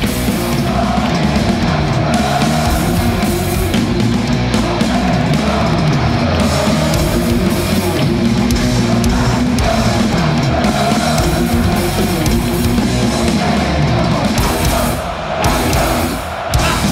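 Live heavy metal band playing: distorted electric guitars, bass guitar and a drum kit, with two brief dips in the playing near the end.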